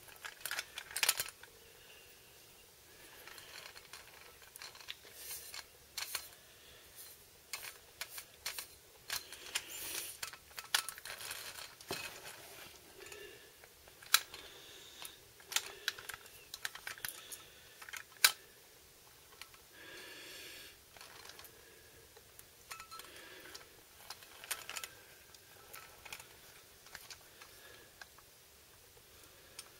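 Toy articulated dump truck rolled and pushed by hand on a hard floor: wheels rolling and scraping, with scattered small clicks and knocks from its parts. Two sharper knocks stand out, about 14 and 18 seconds in.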